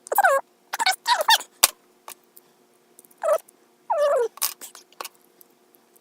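Four short, high, wavering whining cries that fall in pitch, probably from a pet in the room, with light metallic clicks and taps of small lock parts being handled between them.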